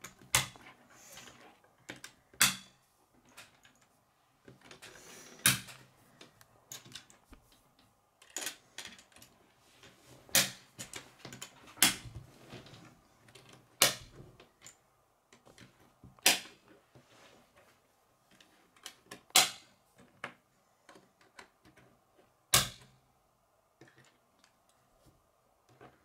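K'nex plastic rods and connectors being snapped together by hand: about ten sharp clicks a few seconds apart, with quieter rattling of loose plastic pieces between.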